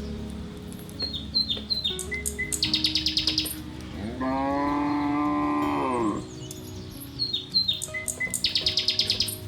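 A cow moos once in the middle, one drawn-out call about two seconds long that rises then falls. Around it, quick high bird chirps and trills repeat in the same pattern twice, over soft background music.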